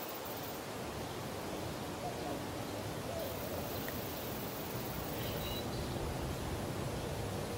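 Steady outdoor background noise, an even hiss with no distinct events, and a faint short high chirp about five seconds in.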